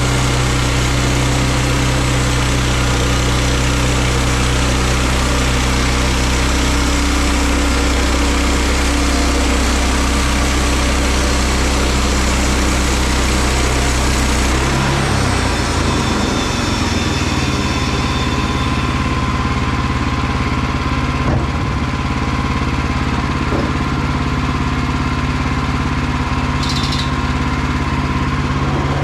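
Woodland Mills HM122 portable bandsaw mill's gas engine running steadily through a cut. About halfway through the engine note shifts and the high noise drops away. A brief high-pitched sound comes near the end.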